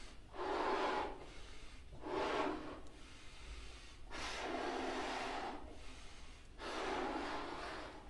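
A man blowing up a party balloon: four long puffs of breath forced into it, the second one shorter, with short pauses for breath in between.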